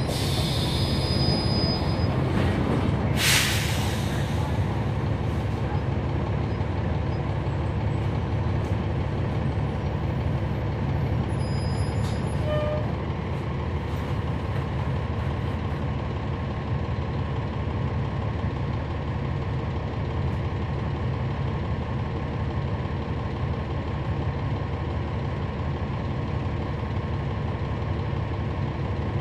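Cummins ISL9 diesel engine of a NABI 416.15 transit bus running steadily, heard on board. A short, loud air hiss comes about three seconds in, typical of the bus's air brakes.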